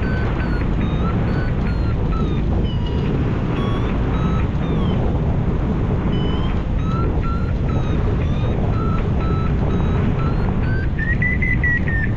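Hang-gliding variometer beeping in short tones whose pitch steps up and down, climbing highest about eleven seconds in as the glider rises in lift, over a steady rush of wind.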